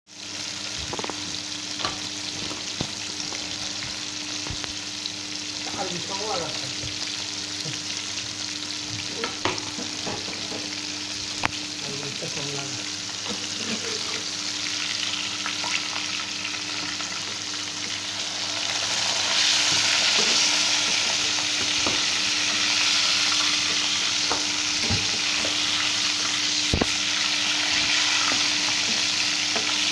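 Pieces of fish deep-frying in hot oil in a pan: a steady sizzle with scattered clicks, growing louder about two-thirds of the way through.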